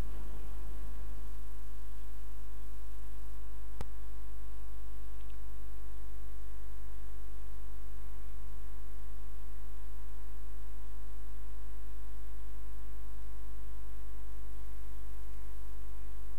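Steady electrical mains hum, with one sharp click about four seconds in.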